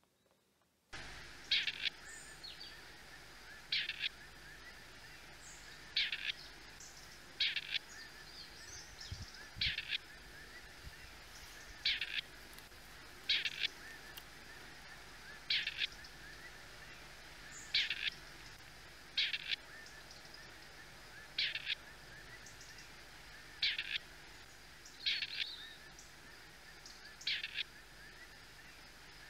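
Grey partridge calling: short harsh calls repeated about every one and a half to two seconds, starting about a second in.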